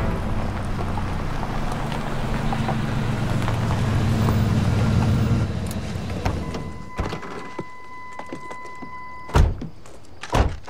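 Pickup truck engine running steadily as the truck drives up and stops, then dying away. A steady high tone sounds for about three seconds, then two heavy car-door thumps about a second apart, the first the louder, as the driver gets out.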